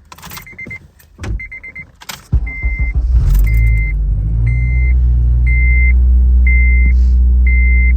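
Car door and key clicks, then an engine cranks and starts about two and a half seconds in, settling into a steady idle. Throughout, a high dashboard warning chime beeps about once a second.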